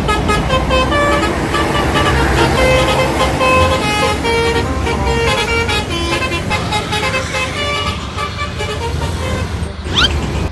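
Bus telolet horn playing a quick tune of short, changing notes over a steady low engine rumble, with a brief rising whistle near the end.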